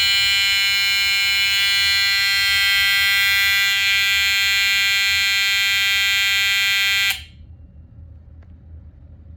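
Edwards 882-2B vintage electronic fire alarm horn sounding a continuous, unbroken steady tone, which cuts off abruptly about seven seconds in.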